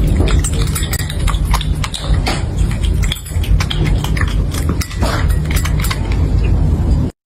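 Kitten yowling loudly and roughly over its food bowl while eating, amid a dense run of crunching clicks from the dry kibble. The sound cuts off suddenly just before the end.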